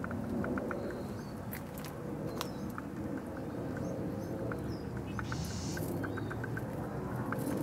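Outdoor background with a steady low rumble, scattered short bird chirps and small clicks, and a brief soft hiss about five seconds in.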